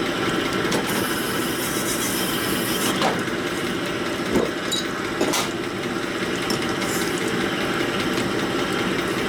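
Horizontal cylinder-honing machine running, its stones rasping steadily inside the bore of a Harley-Davidson Sportster 1200 cylinder stroked back and forth by hand, with a few brief clacks. This is the plateau hone, taking the peaks off the crosshatch.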